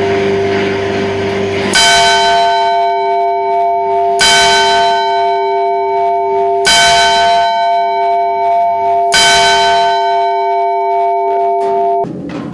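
A bell struck four times, about two and a half seconds apart, each stroke ringing on over the last, after a lower held bell tone. The ringing cuts off suddenly near the end.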